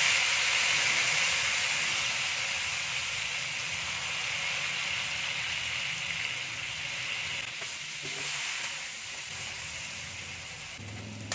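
Pork and onion frying in hot oil in a wok as a dark sauce goes in: a loud sizzle that is strongest at the start and slowly dies down, fading further near the end.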